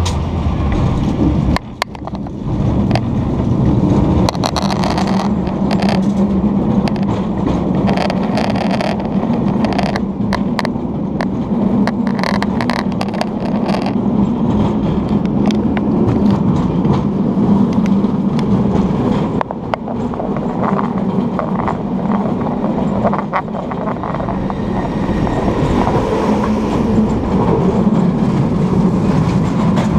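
San Francisco cable car riding along its track: a steady low hum with frequent clicks, knocks and clatter from the car running over the rails.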